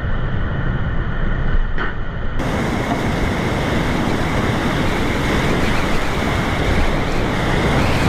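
Rushing river whitewater, a steady noisy rush with no distinct strokes. About two and a half seconds in it changes abruptly and becomes brighter, with more hiss.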